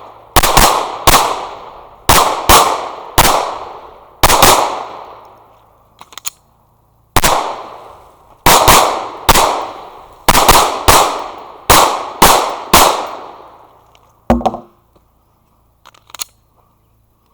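Handgun without a compensator fired in rapid pairs and single shots on a competition stage, each shot trailing off in a short echo. There is a pause of a couple of seconds in the middle with faint clicks, then another run of quick shots.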